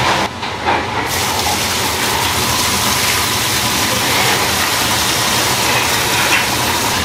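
A thick stream of dark sauce pouring into a large stainless-steel stock pot onto grilled onions and eel bones, a steady gushing splash starting about a second in, over a steady kitchen hum.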